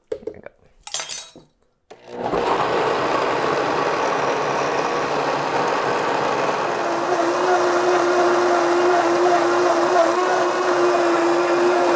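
A couple of short knocks, then a countertop blender starts about two seconds in and runs steadily, puréeing fermented peppers and brine into hot sauce. A steady hum comes into the motor sound a little past halfway.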